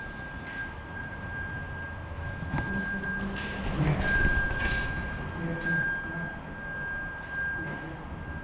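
Metal chak-pur sand funnels being rubbed to trickle coloured sand for a Tibetan sand mandala, giving thin, high ringing tones that start and stop several times.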